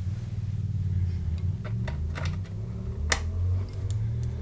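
A low steady hum with a few light clicks and taps from hands handling the DC-Hub's clear plastic cover and stainless steel enclosure, the sharpest click about three seconds in.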